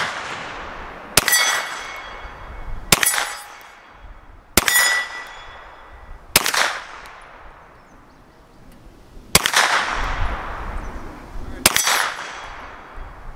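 A Glock 19 9mm pistol fitted with a 16-inch barrel is fired six times in slow, aimed single shots, about one and a half to three seconds apart. Each shot is a sharp crack with a short echoing tail.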